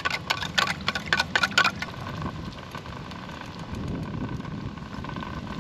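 A metal spoon clinking and scraping against a tin can as melted paraffin wax and olive oil are stirred, a quick run of clicks over the first two seconds or so. Underneath, the spirit stove and its simmering water bath give a steady hiss.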